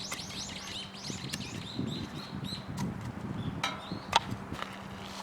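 A bird singing a fast run of short, arched chirps that fades after about two and a half seconds, with a few sharp clicks later on.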